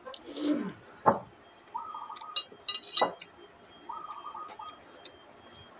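A metal spoon clinking sharply against a dish twice, about a second in and again about three seconds in, amid the sounds of someone eating a mouthful of rice.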